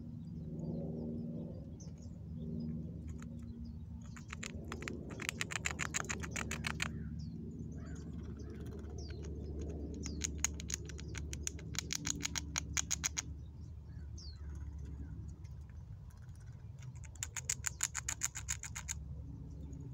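Fox squirrel gnawing the hard shell of a Brazil nut with its teeth: three runs of rapid scraping clicks, each a couple of seconds long, about four, ten and seventeen seconds in.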